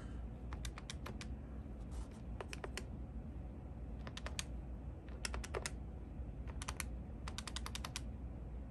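Number keys on a Cisco SPA508G IP phone's keypad clicking under a finger, in about six quick runs of three to seven presses: text being spelled out by pressing keys repeatedly to enter a speed-dial name.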